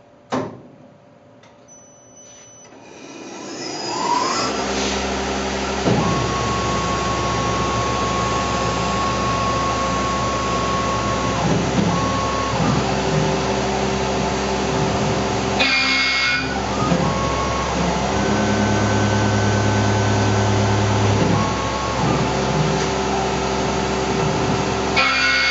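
A click, then a Tormach PCNC 1100 CNC mill's spindle spins up over about three seconds and an end mill cuts 6061 aluminum at 3600 rpm: a steady machining noise with tones that come and go as the cut moves along. Twice, near the middle and at the end, the sound briefly changes.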